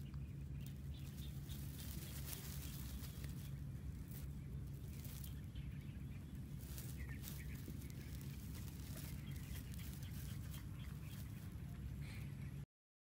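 Outdoor field ambience: a steady low hum under scattered light clicks and rustles, with a few faint short chirps. The sound cuts off abruptly near the end.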